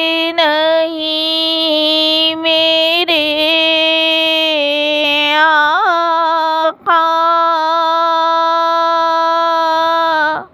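A single high voice singing a naat unaccompanied, drawing out long held notes with small ornamental turns in the melody. It breaks off briefly about two-thirds of the way through, then holds a final long note that stops abruptly at the end.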